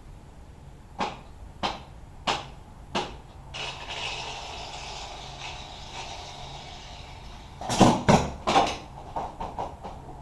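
Four evenly spaced sharp knocks, then a steady hiss lasting a few seconds, then a quick flurry of louder knocks and clatter, tapering into a few lighter taps near the end.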